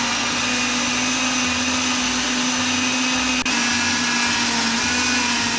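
Electric countertop blender running steadily, grinding chopped onion, tomato, green chilli and garlic into a wet paste for curry gravy: a steady motor hum under the rush of the blades.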